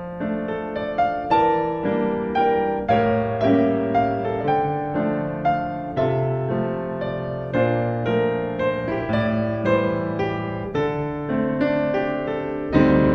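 Piano music: a slow, gentle melody of single struck notes over held bass notes, each note fading after it is struck. Near the end a sustained string sound comes in.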